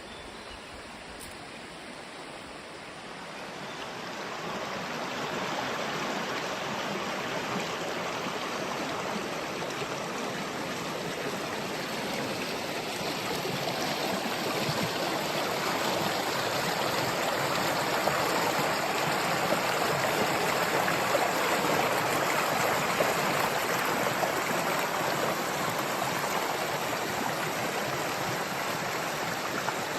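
Stream water rushing steadily, swelling about four seconds in and growing louder toward the middle.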